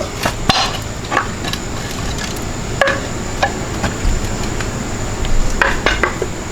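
Scattered metallic clinks and knocks of tools and engine parts being handled during an engine teardown, over a steady background hiss with a thin high whine.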